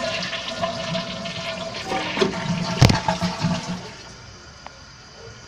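2007 Kohler Wellworth toilet flushing: water rushing out of the open tank into the bowl, with a sharp knock about three seconds in. At about four seconds the rush gives way to a quieter steady hiss as the tank starts to refill.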